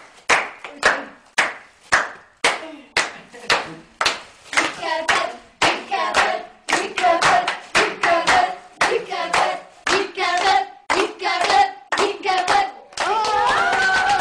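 Rhythmic hand clapping, about two claps a second, joined about four seconds in by voices singing in time with it. Near the end the claps stop and the voices hold longer, sliding notes.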